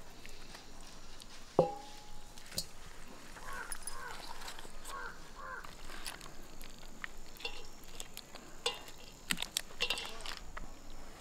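Hands stripping cooked fish flesh off the bones on banana leaves: soft rustling of the leaves and scattered small clicks, with one sharp metallic clink with a brief ring about a second and a half in.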